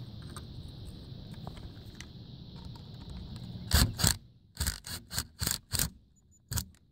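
Cordless drill-driver driving a masonry screw through a solar-panel bracket into a pre-drilled concrete block, in short trigger bursts: two loudest ones about four seconds in, then half a dozen shorter pulses as the screw seats.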